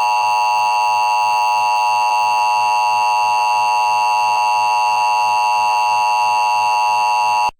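Emergency Alert System attention signal: a steady, loud two-tone alarm (853 and 960 Hz played together) that announces the Required Monthly Test, cutting off abruptly near the end.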